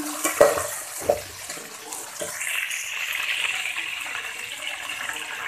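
Raw chicken pieces sizzling in hot oil in a large metal pot, with a metal ladle knocking and scraping against the pot a few times in the first couple of seconds.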